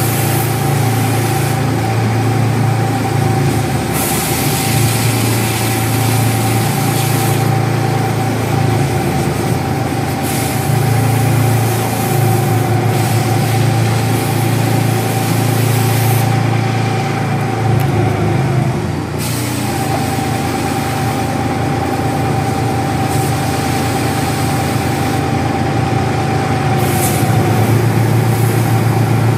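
Barracuda MFU 40/50 E mobile foam unit running steadily with a low hum, while foam hisses from the hose nozzle. The hiss swells and drops back several times as the nozzle is opened and closed.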